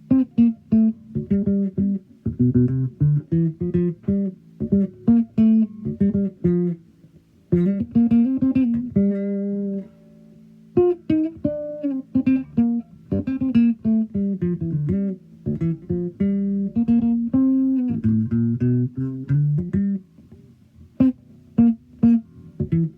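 Sadowsky MetroExpress Modern 5 five-string electric bass played solo: a line of plucked single notes with a held note about nine seconds in and brief pauses near the middle and the end.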